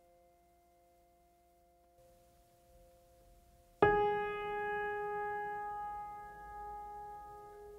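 Relaxing background music: faint held tones, then a single struck note about four seconds in that rings on and slowly fades.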